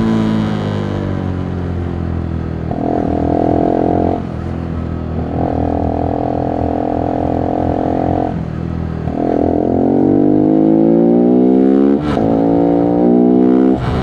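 Voge 125R's single-cylinder 125 cc engine revving through the gears. The revs climb or hold steady, with brief drops at gear changes about four, eight and a half and twelve seconds in; the revs rise again after the last two.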